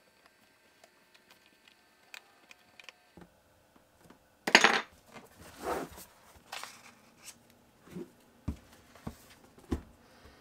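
Faint ticks of a small screwdriver driving tiny screws into a MacBook Pro's aluminium bottom case, then a string of sharp clatters and knocks as metal parts and tools are handled and set down; the loudest clatter comes about four and a half seconds in.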